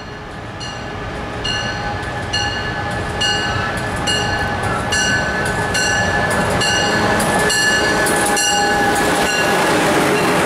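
MARC HHP-8 electric locomotive and its commuter train approaching and passing close by, growing steadily louder. A bell rings a little more often than once a second over a steady high whine and the rumble of the wheels on the rails.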